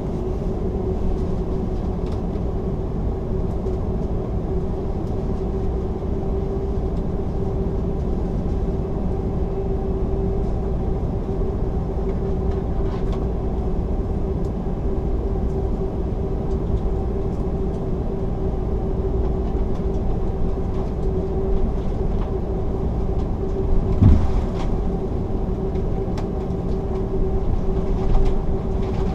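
Cabin noise of an Airbus A330-300 taxiing, heard from a window seat: the engines at taxi power make a steady low drone with a constant humming tone. A single thump comes about 24 seconds in.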